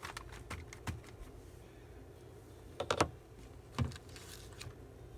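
Light clicks and taps of stamping tools being handled on a craft table: a scatter of small clicks in the first second, a sharper double tap about three seconds in, and one more tap just before four seconds.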